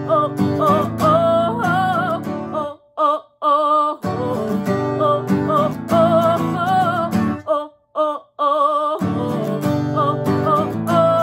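A woman singing a sustained 'oh' melody over strummed acoustic guitar chords. The strumming breaks off briefly about three seconds in and again around eight seconds, with the voice carrying on alone before the chords come back.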